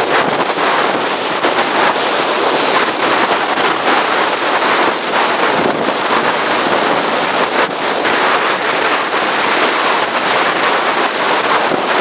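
Strong gale-force wind buffeting the microphone in uneven gusts, over the rush of breaking surf.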